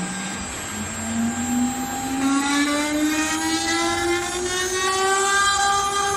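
CNC router spindle motor spinning up: a whine that rises steadily in pitch over about five seconds, then settles at a steady high speed.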